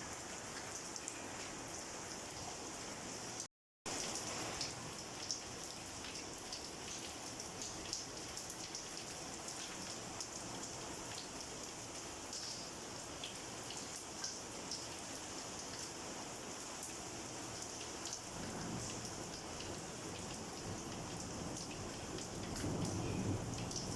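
Steady heavy rain falling, with individual drops ticking and splatting on a surface. The sound briefly cuts out a few seconds in. A low rumble of thunder swells near the end.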